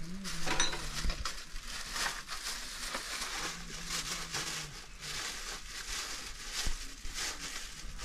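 Irregular crunching and crackling, like something brittle being crushed, with many short uneven strokes.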